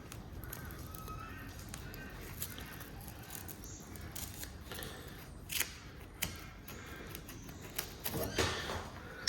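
Cable cutters snipping through an AN-10 hose line, a few sharp crunches around the middle and a cluster of them near the end.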